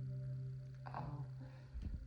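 Soft background music holding one steady low note, with a brief faint sound about a second in.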